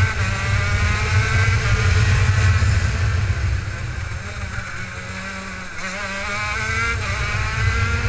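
Racing kart's two-stroke engine heard onboard, revving up with its pitch climbing for the first two and a half seconds. It then drops lower and quieter through the middle as the throttle eases off, and climbs again near the end, over a steady low rumble.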